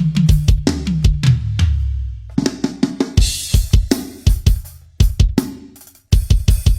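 Yamaha drum kit played in a sound check: tom hits with a falling ring in the first two seconds, a brief break, then cymbal crashes over fast drum strikes, stopping for a moment near the end before quick hits resume.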